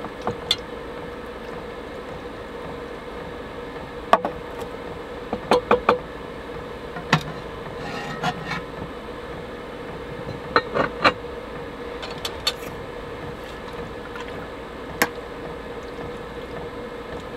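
Utensils clinking and scraping against a bowl and a cast-iron Dutch oven as food is served and eaten, with the pot's lid set in place partway through. The clinks come as scattered sharp taps, some in quick clusters, over a steady low hum.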